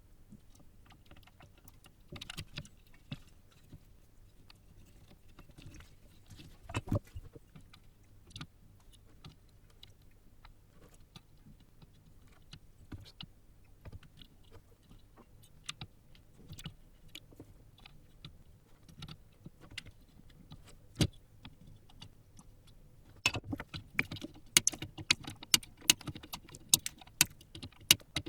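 Scattered sharp clicks and light metallic taps of hand work at a soldering bench, fitting resistors onto a circuit board, over a faint low hum. The clicks come sparsely at first and turn dense and louder in the last few seconds.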